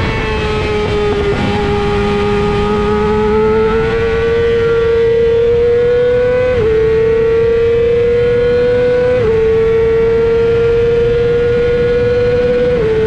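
Yamaha R6 inline-four racing engine held high in the revs at full throttle, its pitch climbing slowly and dropping sharply three times with quick upshifts, about halfway through, about two-thirds through and near the end. A steady rush of wind noise runs underneath.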